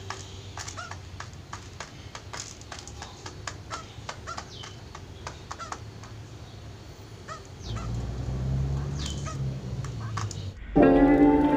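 Zebra dove (perkutut) giving an unusual run of short, sharp calls, about two a second, not its usual cooing song, which the owner takes for some kind of reaction to something. About 11 s in, louder music comes in over it.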